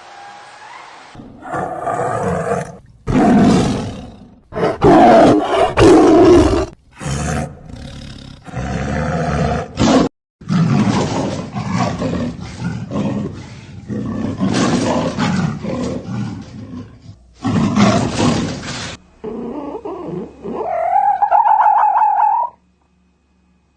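Loud animal roaring in a string of separate short clips that cut abruptly from one to the next, followed near the end by a single rising pitched call.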